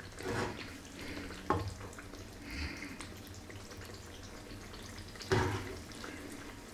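Saucy butter chicken being spooned from the pan onto a plate: a few wet scoops and splashes, with a sharp knock about a second and a half in and a louder scoop near the end.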